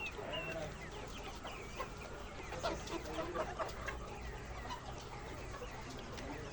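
A large flock of laying hens clucking and calling over one another, many short squawks overlapping, with a steady low hum underneath.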